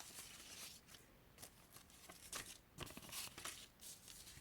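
Faint rustling and crinkling of origami paper being handled, in several short scattered rustles.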